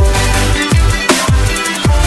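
Electronic dance music with heavy kick drums that drop in pitch and a sustained deep bass line, at a steady beat.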